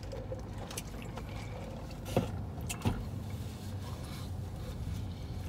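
Steady low hum of a car running while parked, heard inside the cabin, with light rustling of a foil sandwich wrapper and two short sharp clicks about two and three seconds in.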